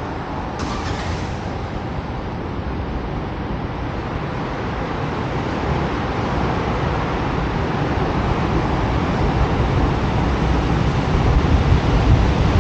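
Steady rumble of city street traffic, growing louder over the last few seconds.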